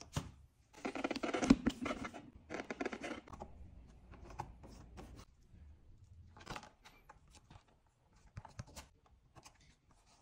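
Vinyl decal pieces handled and rustling, with a scratchy stretch of crinkling in the first few seconds, then scattered light taps and rubs as fingers press and smooth the stickers onto a plastic fender.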